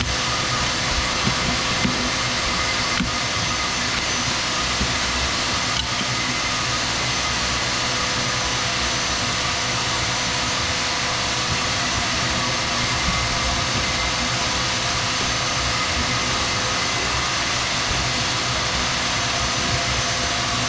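Jackhammer running continuously, breaking up a six-inch-thick concrete floor slab.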